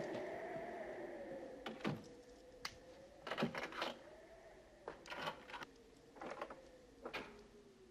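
Front door being locked from inside: a series of separate clicks, knocks and rattles from its locks and latch. Behind them a faint, slowly wavering howl of wind from outside.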